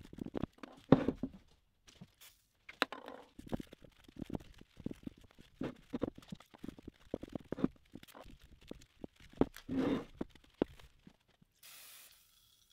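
Cloth rag rubbing and scrubbing inside a metal spindle housing, in irregular strokes with small scrapes and knocks. A short hiss near the end.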